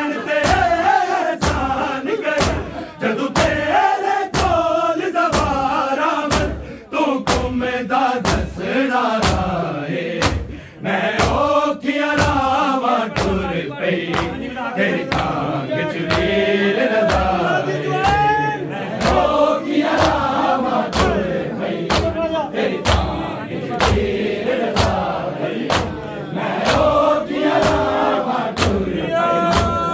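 Men's voices chanting a noha in unison over a steady rhythm of matam, the mourners striking their chests together about three times every two seconds.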